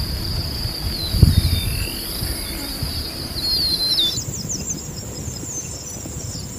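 Birds chirping and calling repeatedly in high-pitched notes over a low rumbling noise; about four seconds in, the birdsong changes abruptly to a higher, quicker run of chirps.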